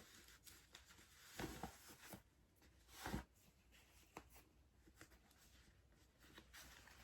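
Near silence with a few faint, brief rustles of denim jeans being handled, the clearest about one and a half and three seconds in.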